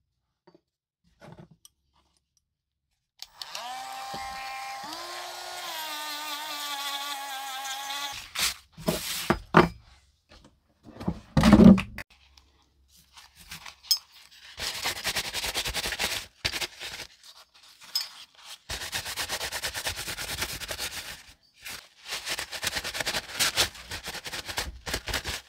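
Paper towel dampened with white spirit rubbing and crinkling in hands, in long rough bursts through the second half. Earlier come a brief pitched whine that steps up and then drifts down, and a few knocks, with a single loud thump about halfway through.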